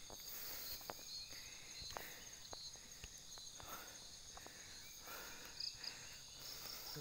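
A steady high-pitched insect chorus, several shrill tones held without a break, with the soft scuffs and ticks of footsteps on a stony dirt track.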